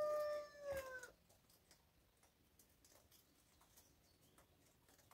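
A single drawn-out animal call holds one pitch and falls at the end, lasting about the first second. Faint scattered clicks and rustles follow as young rabbits feed on pellets in hay.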